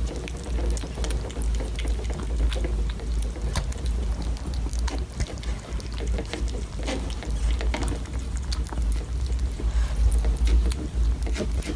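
Two cats eating soft food from plastic bowls close to the microphone: wet chewing, smacking and lapping in many irregular small clicks, over a steady low rumble.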